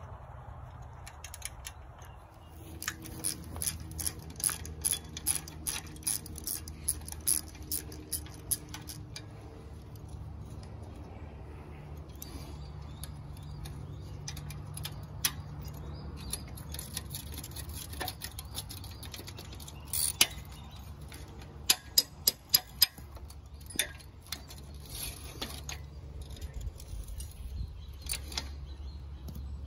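Metal clicks and clinks of hand tools, bolts and nuts on a sickle bar mower's steel cutter bar as knife sections are swapped, with a socket ratchet clicking; a quick run of four sharp clicks comes about two-thirds of the way through. A steady low hum runs underneath.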